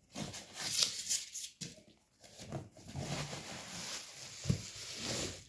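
Cardboard flaps and plastic bubble wrap rustling and crinkling in irregular bursts as a wrapped item is pulled out of a cardboard box.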